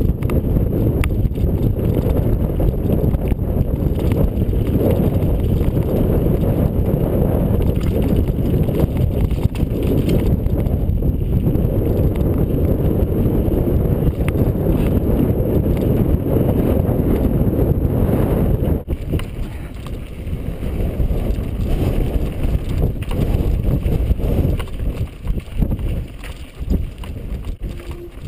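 Mountain bike riding a rough dirt trail, heard from a helmet-mounted GoPro: a steady low rumble of wind on the microphone and tyres on dirt, with scattered knocks and rattles from bumps. About two-thirds of the way in the sound breaks off and turns lower and more uneven.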